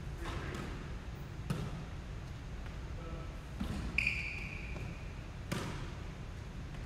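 Basketballs bouncing on a hardwood gym floor during a shooting drill: several separate thuds a second or two apart. About four seconds in there is a brief high-pitched ringing tone that fades over about a second.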